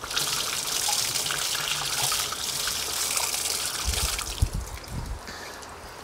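Water trickling and splashing in a sink as a potted orchid is washed and left to drain, tapering off over the last couple of seconds.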